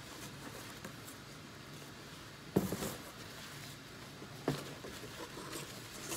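Two sharp knocks about two seconds apart as small objects are handled and set down, over the steady hiss of an electric fan.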